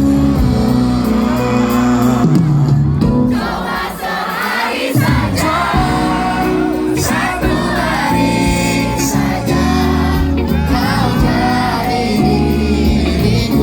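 Live pop band playing, with loud singing that the audience sings along with, heard as a crowd.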